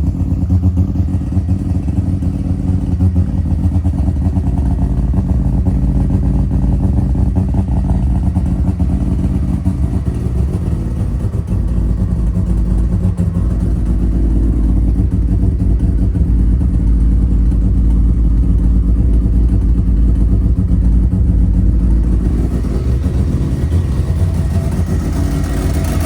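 Mazda 13B two-rotor rotary engine with semi-peripheral-port housings running loud and steady on its first start, with a slight exhaust leak. Its note turns brighter in the last few seconds.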